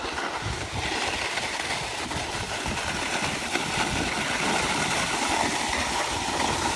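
Steady scraping hiss of sliding down a snow slope, with wind buffeting the microphone.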